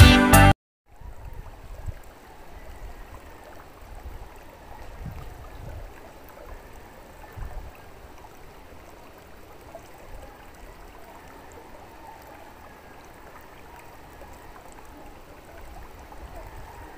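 Background music cuts off about half a second in. After that there is faint, steady outdoor ambience: a light rush like running water, with low rumbles on the microphone.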